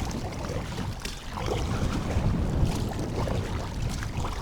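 Strong, gusty wind buffeting the microphone on a kayak in open water: a steady, uneven low rumble.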